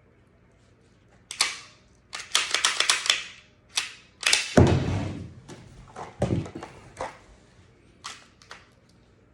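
Clicks, rattles and knocks from handling a Smith & Wesson M&P 9mm pistol and its parts during cleaning, with a quick run of clicks about two seconds in and a heavier thud about four and a half seconds in.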